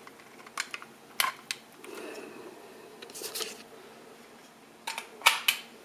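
Sharp metallic clicks and clacks from the arms of a bomb release controller being worked by hand to cock them. There is a short rattle about three seconds in, and a cluster of clicks near the end, the loudest of which is the strongest sound.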